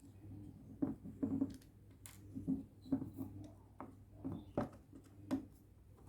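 Small screwdriver clicking and scraping against an Audi A4 B8 door lock mechanism as it is worked apart by hand: light, irregular clicks and taps, one or two a second, over a steady low hum.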